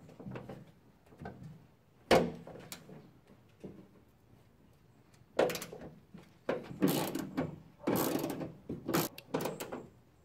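Hand tool clicking and clattering against the metal inner panel of a car's trunk lid while the bolts holding the factory lip spoiler are undone: a sharp click about two seconds in, then a busy run of rattling and scraping from about halfway.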